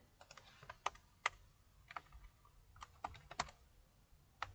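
Computer keyboard typing: a dozen or so faint, irregular key clicks.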